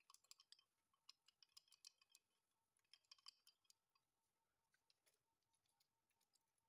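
Near silence: room tone with faint, scattered small clicks and ticks, bunched in the first half.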